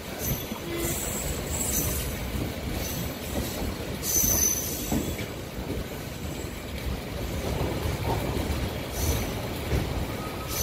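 Electric MEMU train's steel wheels running on the rails, heard from on board as it pulls into the station: a steady low rumble with short spells of high-pitched wheel squeal coming and going, strongest about four seconds in and again near the end.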